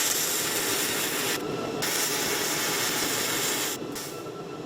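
Electric arc welder crackling as the end of a stacked steel billet is tack-welded together: one bead that breaks off about a second and a half in, a short pause, then a second bead of about two seconds that stops near the end.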